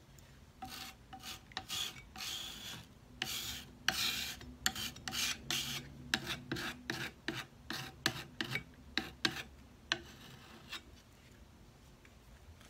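Putty knife scraping over a wet painted wooden drawer front in repeated strokes, dragging the paint around. The strokes start longer and become shorter and quicker, about two a second, after six seconds, stopping near the end.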